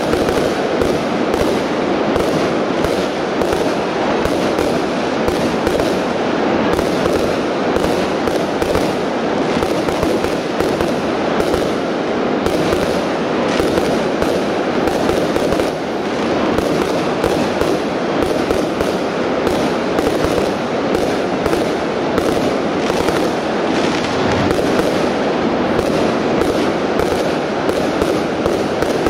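Aerial fireworks in a professional display: a continuous barrage of shells bursting overhead, many sharp bangs and crackles a second with no let-up.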